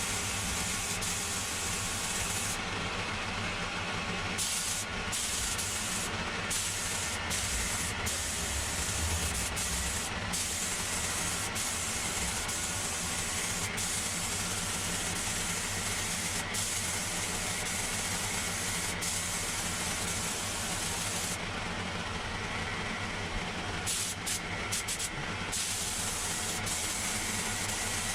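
Compressed air hissing steadily from an air tool, cut off briefly about three seconds in and again for a few seconds near the end, over the steady hum of a running air compressor.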